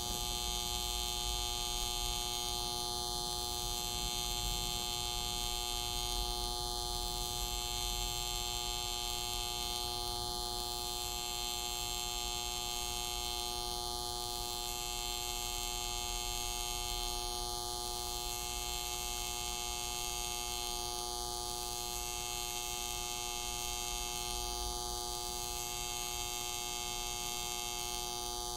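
Steady electric buzz of a simulated AC TIG welding arc from a Soldamatic augmented-reality welding simulator, with a faint pattern repeating about every three and a half seconds.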